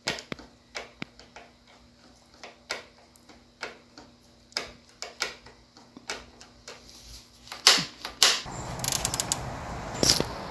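Scattered clicks and light taps of hand-tool work on dirt-bike parts, a screwdriver fastening the handlebar controls. A little over eight seconds in, a steady background hiss comes in, and the clicks carry on over it.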